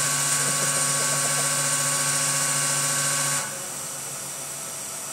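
Filling machine for urea in 10-litre cans running, a steady hum with a high hiss, which drops away about three and a half seconds in as the fill ends.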